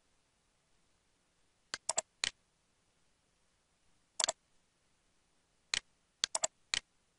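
Computer mouse clicking about ten times in three irregular groups: a quick run of four, a single click, then a run of five, each click short and sharp.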